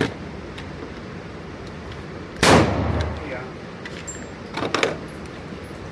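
A single loud gunshot about two and a half seconds in, with a long ringing decay. About two seconds later come a pair of fainter sharp reports.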